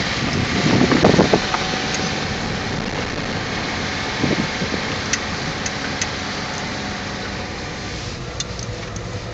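Car driving slowly, heard from inside the cabin: steady engine and tyre noise.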